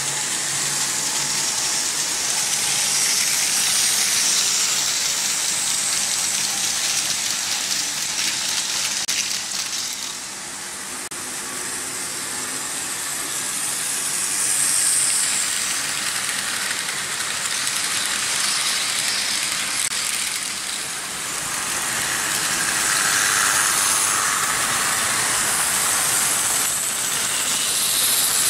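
Several Märklin H0 model trains running on stamped-steel M-track: a steady rushing rattle of metal wheels over the hollow metal track, with the motors' whir. It swells and fades as trains pass, dipping twice.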